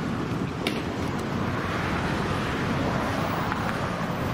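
Steady roadside noise of traffic and wind on the microphone, with two short sharp clicks in the first second or so.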